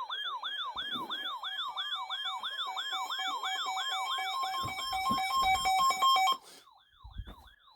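Electronic alert siren in a fast yelp, about four falling sweeps a second, joined about two and a half seconds in by a pulsing beep tone. It cuts off abruptly near the end, and a fainter yelp lingers briefly.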